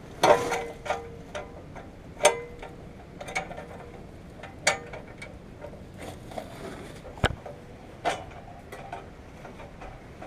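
Irregular metallic clinks and taps of hand tools on metal parts, about a dozen spread out, a few ringing briefly at one pitch, with one sharper knock a little past seven seconds in.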